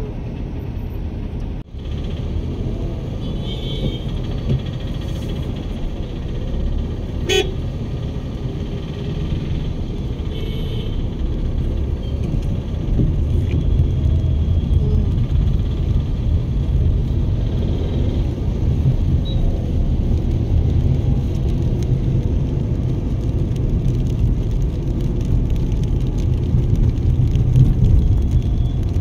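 Steady low rumble of a moving vehicle in city traffic, with horns tooting now and then; one short, sharp beep comes about seven seconds in.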